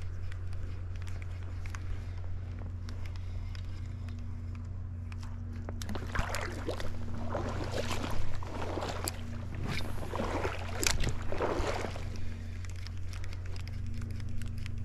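River water running with a steady low noise, with irregular sloshing and splashing of water through the middle few seconds.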